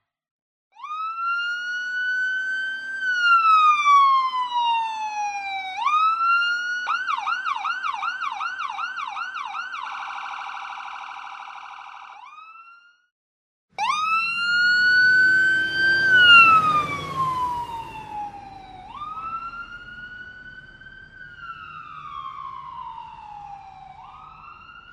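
An electronic ambulance siren wails slowly up and down. It then switches to a fast yelp of about three sweeps a second, then to a rapidly pulsing steady tone that fades out. After a second's break it starts wailing again, now with a rumbling noise underneath.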